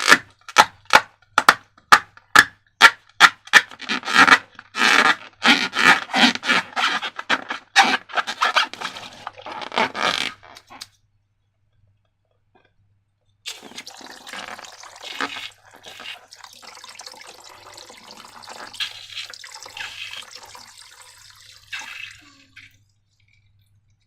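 Wet slime being squished and stirred by hand: rhythmic squelches about twice a second that grow denser, then stop briefly. Softer sticky crackling follows.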